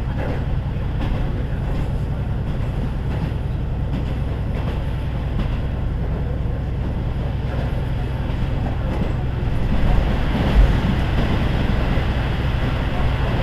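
KiHa 40 diesel railcar running, heard on board: a steady low engine drone with wheel and rail noise. About ten seconds in the running noise grows, and there is a single short thump.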